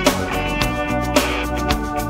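Rock music played on electric guitars over a drum beat, with sharp drum hits every half second or so.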